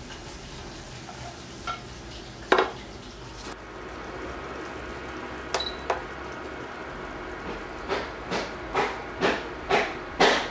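A quiet sizzle from a frying pan, with a few sharp clacks of cooking utensils. After that comes a run of six knocks about two a second from an unseen source, an outside noise and not the cooking.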